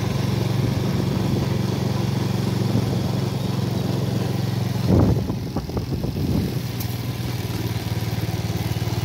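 A small engine running steadily with an even low hum, broken by a short louder rumble about five seconds in.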